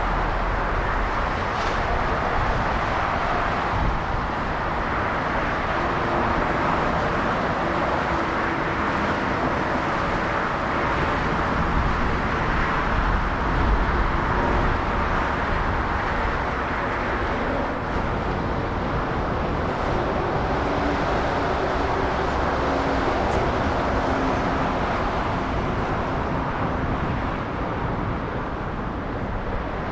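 Steady airport ambience: an even rush of engine noise with faint hum tones and no distinct events.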